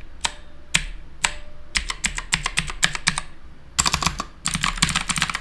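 HP GK100 mechanical keyboard with clicky blue switches being typed on. Single keystrokes come about twice a second, each with a short ring after it. About two seconds in they give way to quicker typing, and from about four seconds in to a fast, continuous clatter of keys.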